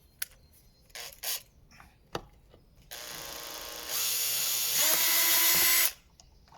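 Drill with a flat-head bit unscrewing a rounded-off screw through a slot cut into its head. A few light clicks as the bit is seated, then the drill starts about three seconds in at low speed, speeds up a second later, and stops sharply shortly before the end.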